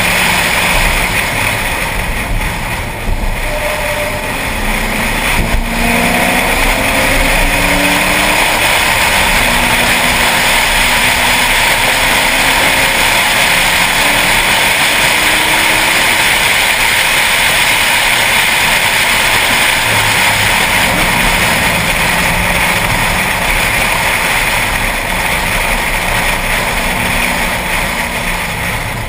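Ford Mustang's engine running hard at track speed, its revs rising and falling through the gears over steady wind and road noise.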